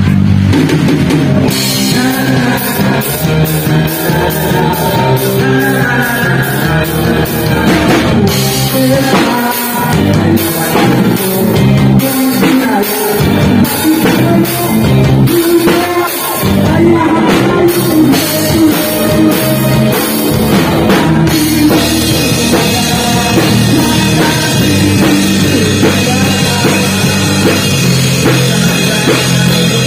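Live rock band playing loud and without a break: drum kit, electric guitars, bass and keyboard together. Near the middle the low end thins for several seconds and the drums carry the beat.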